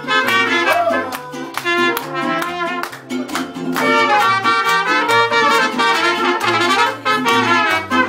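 Mariachi band playing live: two trumpets carry the melody over strummed guitars and a moving bass line.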